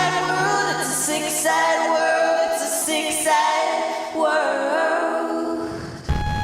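Music: layered singing voices holding and gliding between sung notes with little accompaniment, the bass having dropped out. The low end comes back in about six seconds in.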